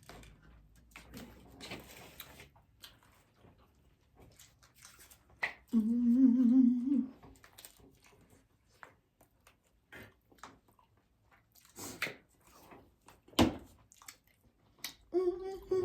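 Close-up eating sounds of crunchy taco shells: scattered short crunches and mouth clicks of chewing. About six seconds in, a held 'mm' hum of enjoyment is the loudest sound, and a sharp knock comes near the end, followed by another hum.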